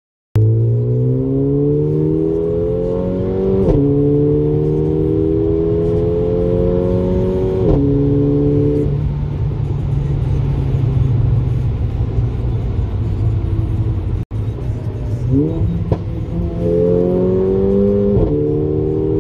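Mercedes-AMG A45's turbocharged 2.0-litre four-cylinder heard from inside the cabin under hard acceleration. Its pitch climbs and drops sharply at each quick upshift of the dual-clutch gearbox, with a short crack at each change. In the middle it eases off to a steady lower note, then pulls hard through more upshifts near the end.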